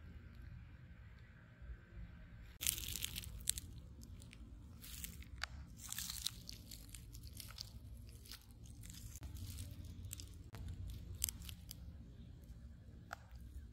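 Irregular rustling and crackling that starts about two and a half seconds in, over a low steady rumble.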